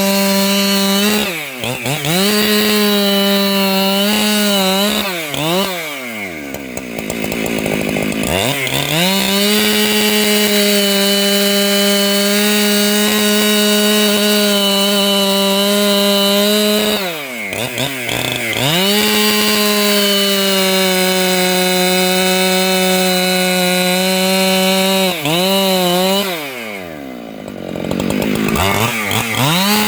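585 XP two-stroke chainsaw running at high revs, cutting wood. Its engine note sags and recovers a few times, and twice drops well down toward idle before revving back up to full throttle.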